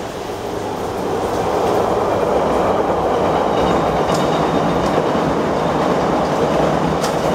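A train passing close by: its rumble and wheel clatter build over the first two seconds and then hold steady and loud, with a faint high wheel squeal in the middle.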